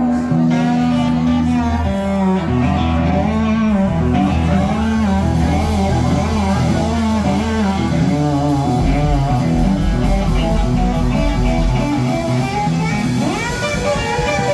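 Live band playing a guitar-led passage: electric guitar lines bending up and down over a steady bass.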